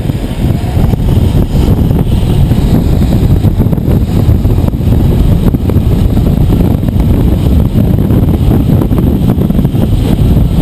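Loud, steady wind buffeting a handheld GoPro HD2's microphone: the rushing air of a jumper falling down a guided descent wire from a tower.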